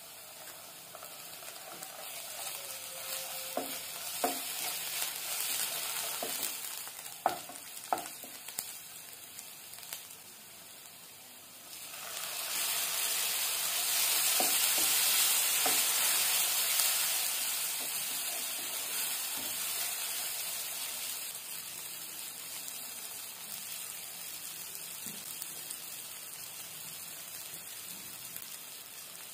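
Chopped shallots, ginger-garlic paste and tomato sizzling in hot oil in a non-stick kadai, stirred with a wooden spatula. The spatula knocks against the pan a few times in the first third. About twelve seconds in the sizzle turns much louder with the tomato in the pan, then slowly dies down.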